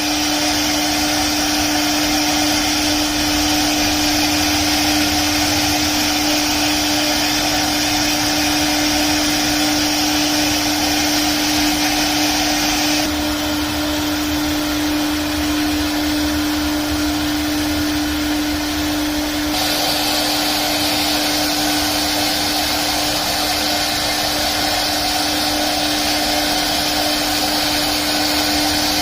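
CNC wood router running steadily, with a strong steady whine and a hiss over it. The higher hiss drops back between about 13 and 20 seconds in, then returns.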